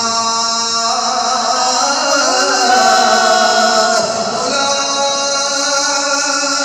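A man's voice chanting melodically into a microphone, holding long notes and gliding slowly between pitches, in the sung style of recitation within a sermon.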